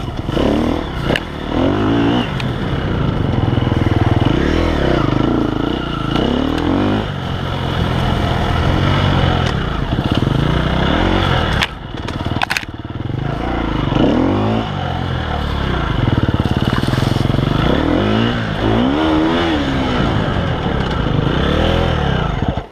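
KTM 250 EXC-F enduro bike's 250 cc four-stroke single with an Akrapovič exhaust, revving hard and easing off again and again, its pitch rising and falling with each burst of throttle. Knocks and clatter from the bike over rough ground, with a brief dip in the engine note about twelve seconds in.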